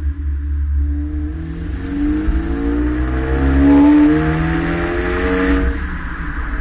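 2013 Hyundai Veloster Turbo's turbocharged 1.6-litre four-cylinder accelerating through a Borla aftermarket exhaust. The exhaust note rises in pitch for about five seconds and eases off near the end.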